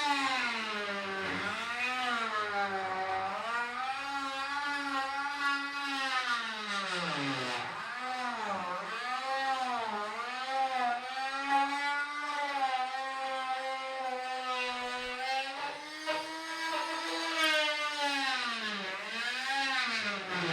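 Rockwell oscillating multi-tool running and cutting into a wooden 2x4 ramp, a high buzzing whine whose pitch repeatedly sags as the blade bites under load and climbs back as it frees up.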